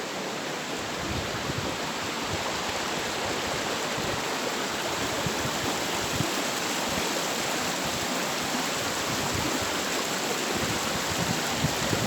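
Waterfall and fast river water rushing steadily over rocks, the river running high.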